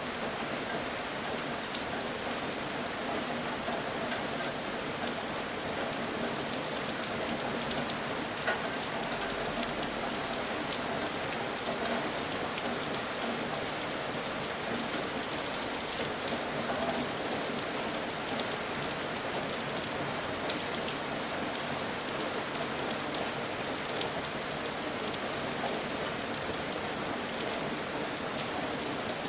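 Steady rain falling, an even hiss with scattered sharp ticks of nearby drops.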